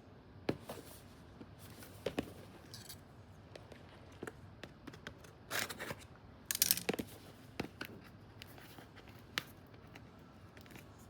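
Tightly sealed plastic outer wrapping of a toy box being sliced and torn open: scattered small clicks and short scratchy tearing rustles, the loudest about six to seven seconds in.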